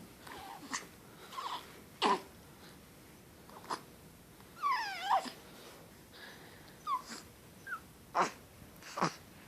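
A pet hiccupping: about six short, sharp hics, unevenly spaced one to one and a half seconds apart, with a brief falling whine or cry about halfway through.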